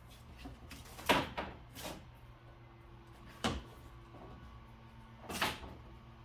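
Plastic front lip splitter being handled and fitted up against the car's front bumper: four short knocks and scrapes, the loudest about a second in.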